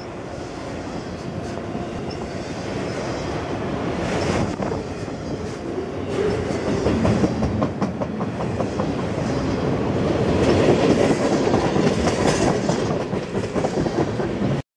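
Freight train of autorack and covered hopper cars rolling past close by: a steady rumble and rattle of wheels on rail with a repeated clickety-clack, growing louder in the second half and cutting off abruptly near the end.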